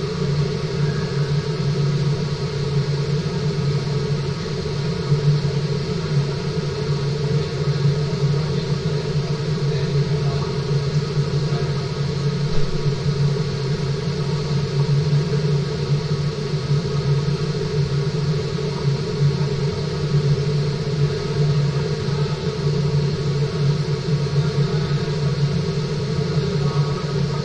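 Steady low rumble and hum of a fish-farming tank's water circulation, with no change or separate events.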